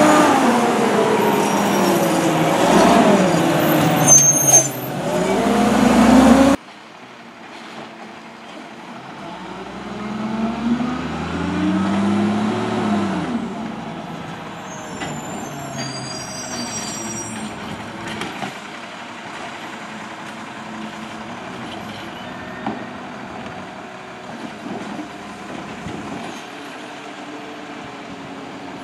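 McNeilus Autoreach side-load garbage truck working close by, its engine revving up and down in loud swells as it drives the hydraulic arm. This cuts off suddenly about six and a half seconds in, and the truck is then heard from farther off, revving up and back down once, with a few brief high squeals, then running more quietly.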